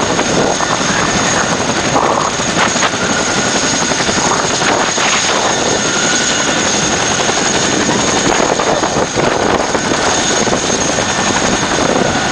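CH-47 Chinook helicopters running on the ground: steady loud engine noise with a constant high turbine whine.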